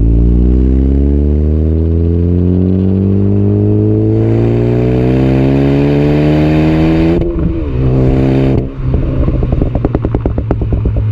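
Ford Focus ST's turbocharged 2.0-litre four-cylinder engine through a Magnaflow exhaust, its revs climbing steadily for about seven seconds. The revs then drop suddenly, and a run of rapid crackles and pops follows on the overrun, the sound of the Stratified crackle tune.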